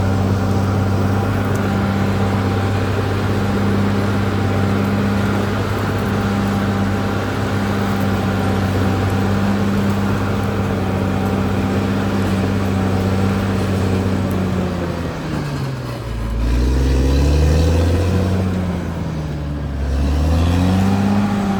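Caterpillar D6R XL bulldozer's diesel engine running with a steady drone. About three-quarters of the way through, its pitch sinks and comes back up twice, with a deeper, louder rumble while it is down.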